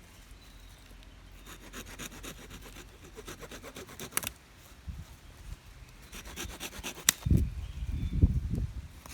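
Wood being worked by hand, likely a saw or blade on a stick: quick rasping strokes in runs, a sharp snap about seven seconds in, then heavier, lower rubbing.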